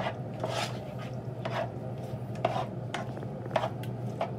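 A spatula scraping and pushing sliced onions around a nonstick frying pan in short, uneven strokes, about seven in all, over a steady low hum.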